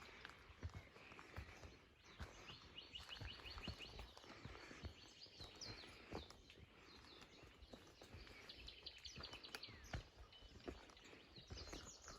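Small birds chirping faintly, with two rapid high trills, one about three seconds in and one about nine seconds in. Scattered soft low knocks sound between the calls.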